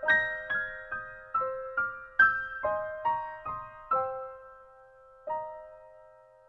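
Background music: a slow, soft melody of single high piano notes, each struck and left to ring and fade, with a pause and one long ringing note near the end.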